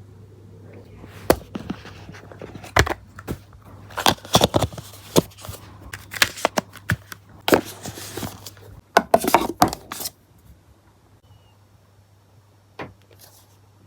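Handling noises: a quick run of clicks, knocks and rustling scrapes for about nine seconds, then a single click near the end, over a low steady hum.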